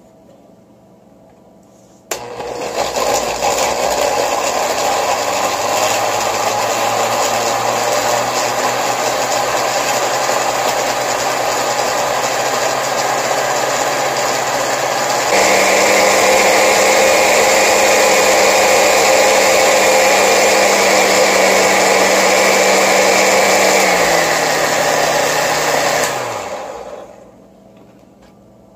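Countertop blender with a glass jar puréeing beetroot in juice and sugar. The motor starts about two seconds in and runs steadily, steps up to a louder, higher speed about halfway through, then winds down in pitch and stops near the end.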